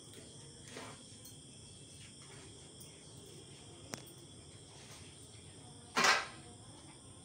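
Crickets chirring steadily in the background while large taro leaves are handled; a single short, loud rustle of a taro leaf being spread flat about six seconds in, with a faint click near the middle.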